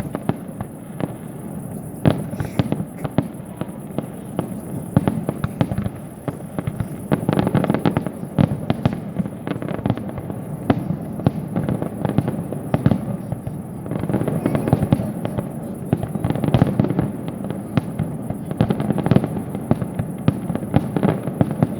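Fireworks display: a dense, continuous barrage of bangs and crackling reports, several a second, swelling into busier, louder volleys a few times.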